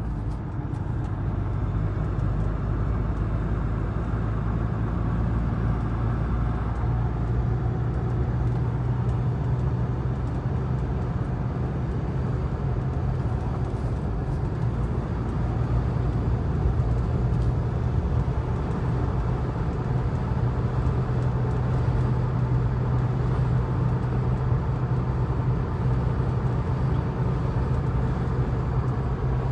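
Cabin noise inside a Mahindra Scorpio Classic S11 at expressway speed: a steady low drone from its diesel engine under a constant rumble of road and tyre noise from BFGoodrich All-Terrain tyres, in a cabin with no added sound damping. The noise grows a little louder about halfway through.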